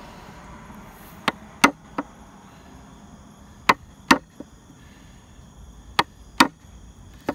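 Mallet striking a 10 mm bench chisel held on a marked line in wood, in sharp taps that come in pairs three times with pauses between, and once more at the end. It is cutting a knife wall across the line so the wood won't blow out at the back when the mortise is chopped through.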